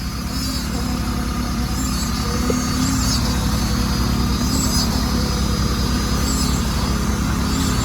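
A large engine running steadily at constant speed with a low rumble. Faint high chirps recur every second or so above it.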